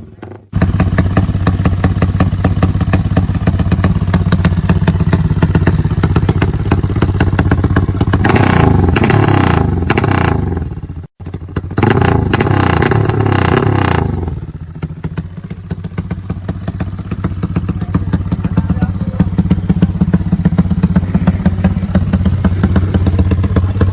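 Modified Yamaha Y15 single-cylinder motorcycle engine with a Comstar dry clutch, running at idle and revved twice in the middle before settling back to idle. The sound drops out briefly near the start and between the two revs.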